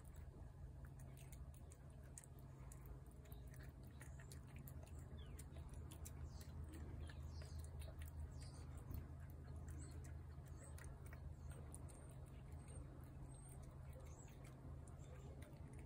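Faint chewing and soft clicking of a cat eating wet food from a plate, over a low steady hum.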